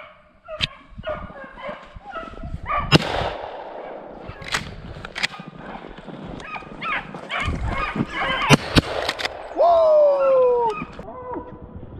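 Beagles baying on a snowshoe hare's track: repeated bawls, with one long howl falling in pitch near the end. Several sharp cracks cut through, the loudest about three seconds in and two close together about eight and a half seconds in.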